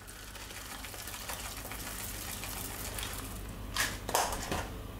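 Frozen chopped basil being shaken out of a small container onto a bowl of egg mixture: a steady fine rustle of falling flakes, with a few sharp taps on the container about four seconds in.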